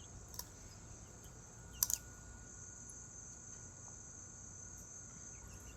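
Insects, crickets by their sound, trilling steadily and faintly in a high band, with a single sharp click about two seconds in.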